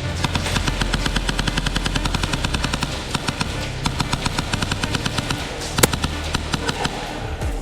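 Background music with a fast, even percussive beat over a shifting bass line; a single sharp crack stands out about six seconds in.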